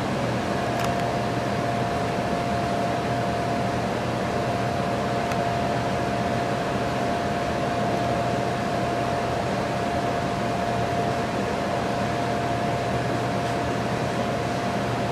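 Blower of a Rheem hydronic forced-air air handler running steadily in a heating cycle: an even rush of air with a steady hum-like tone through it.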